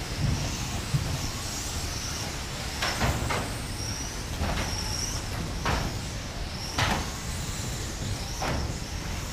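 Small electric RC cars racing on a carpet track: the high whine of their motors rising and falling as they speed up and slow down, with several sharp clacks as cars hit the barriers or are handled.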